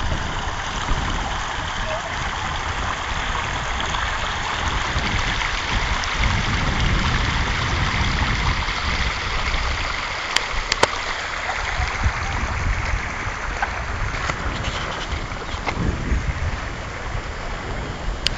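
Shallow river water rushing over a stony bed, a steady hiss, with wind buffeting the microphone in uneven low rumbles and a couple of sharp clicks about ten seconds in.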